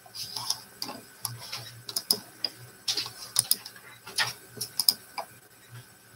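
Paintbrush tapping and dabbing on a stretched canvas: a run of irregular sharp taps, some in quick pairs.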